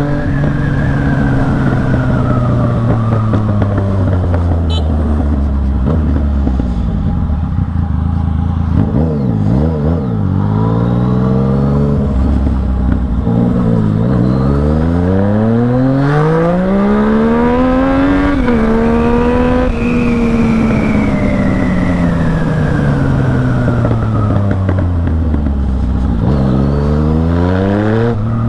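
Yamaha MT-09 three-cylinder engine on the move, its revs changing throughout. The revs fall off over the first several seconds, climb steadily from about halfway with a brief step like a gear change, ease down again, then pick up near the end.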